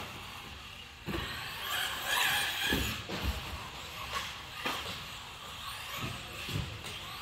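Schumacher Cougar LD2 1/10 electric off-road buggy, with a 5.5-turn Reedy brushless motor, driving laps. The motor's whine rises and falls with the throttle, and there are several sharp thumps from the chassis and tyres.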